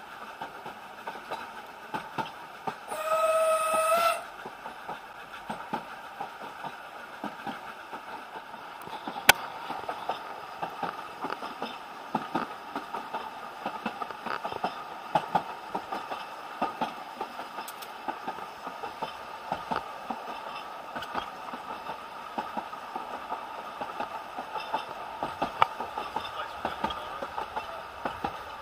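Steam locomotive's whistle blown once, a short blast of about a second a few seconds in, over the steady rumble and irregular clicks and knocks of a railway carriage running along the track, heard from inside the carriage.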